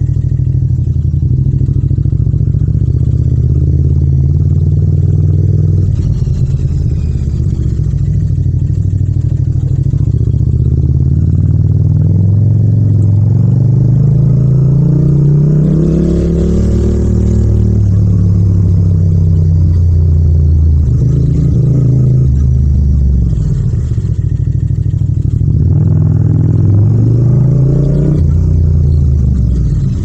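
Yamaha MT-07's 689 cc parallel-twin engine and exhaust under way, recorded without wind noise. The revs climb through the gears about halfway through, ease off, and rise briefly again near the end.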